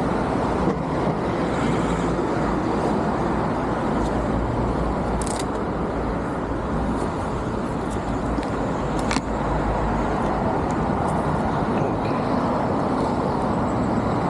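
Steady wind and road rush from riding an Aprilia Tuono 660 motorcycle, with a few short clicks.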